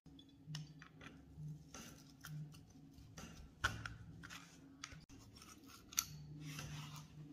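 Steel needle-nose pliers clicking and scraping against the rusty barrel bushing at the muzzle of an Astra 4000 Falcon pistol as they grip and turn it loose. A series of small, sharp metallic clicks, the loudest about three and a half seconds and six seconds in.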